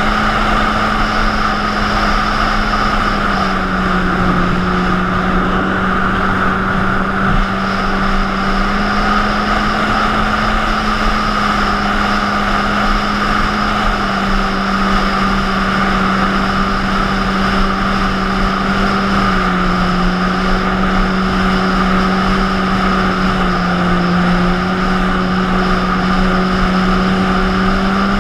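Jet ski engine running steadily at speed, its drone dropping or rising slightly in pitch every few seconds, over a constant rush of wind and water.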